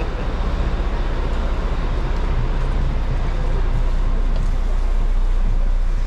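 Bus engine running with road noise, a steady low rumble.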